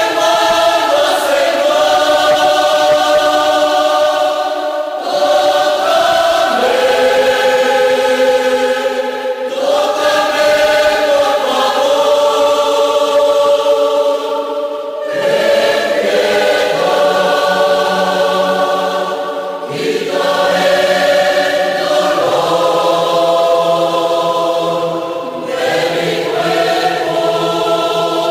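Church choir singing a Spanish-language hymn in held chords, the phrases breaking about every five seconds.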